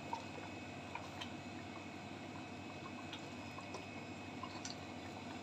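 Wooden spatula stirring a thin prawn curry in a metal pot: faint liquid sloshing with a few light clicks of the spatula against the pot, over a steady low hiss.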